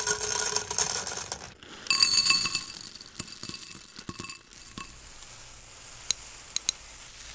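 Dry cat food kibble pouring into a pet bowl: a hiss of pouring, then a rattle of pieces clinking against the bowl with a ringing tone, and three last sharp clinks near the end.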